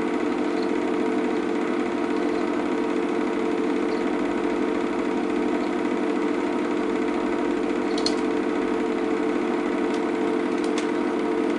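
Cine film projector running: a steady mechanical whirr with a few sharp clicks about eight seconds in and near the end.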